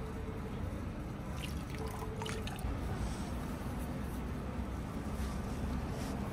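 Water trickling from a bamboo spout into a stone basin, over a steady low rumble. A few short crackles come about two seconds in as a flaky Danish pastry is pulled apart by hand.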